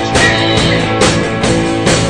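A live rock band playing, with electric guitars over a drum kit keeping a steady beat of about two hits a second.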